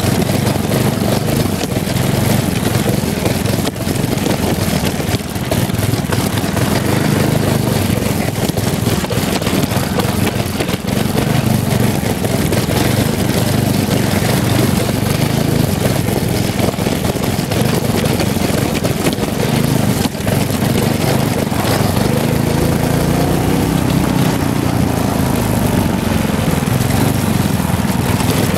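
Go-kart's Tecumseh HM100 10 hp single-cylinder four-stroke engine running under load through a homemade pipe muffler. Its pitch rises and then falls again about three-quarters of the way through as the kart speeds up and eases off.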